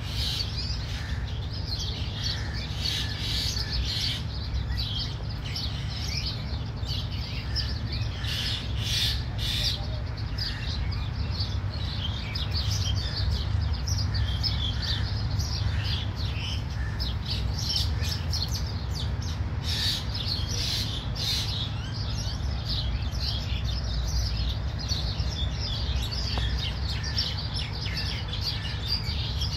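Many small wild birds chirping and twittering over one another in quick, overlapping calls, over a steady low rumble.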